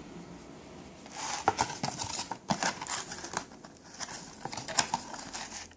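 Packaging being handled: irregular crinkling and sharp clicks, starting about a second in.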